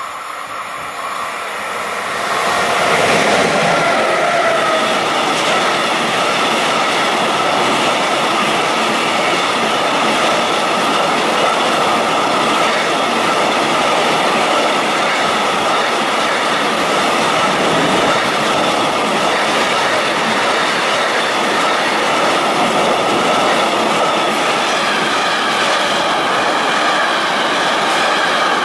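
A container freight train hauled by an electric locomotive comes up and passes close by, growing louder over the first three seconds. The wagons then roll past in a steady noise of wheels on rail, with several high ringing tones held throughout.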